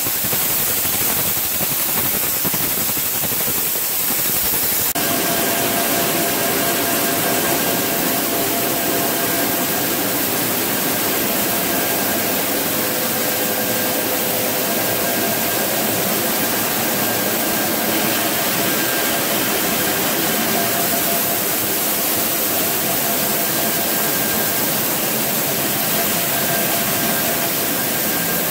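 Corn-milling plant machinery running with a loud, steady drone. For the first five seconds or so, the hiss of corn streaming from a metal spout into a hopper is mixed in; then the sound turns to an even machine drone with a faint steady hum of tones.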